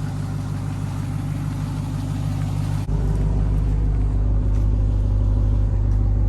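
Ram TRX's supercharged 6.2-litre V8 idling with a steady low rumble. About three seconds in, it abruptly becomes louder and deeper.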